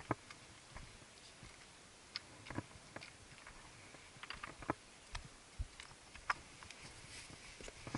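Irregular clicks, knocks and scuffs of a hiker's footsteps on loose rock and stone slabs, a dozen or so sharp taps at uneven spacing.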